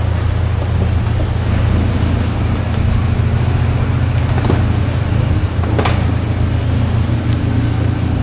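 Steady low mechanical rumble, like a running engine or traffic, with a couple of brief clicks or knocks about halfway through.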